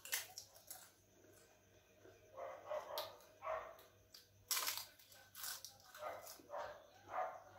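Crisp cracking crunches of a fried papad being bitten and chewed, the loudest about halfway through. Over them a dog barks repeatedly in short barks about half a second apart, starting a little before the middle.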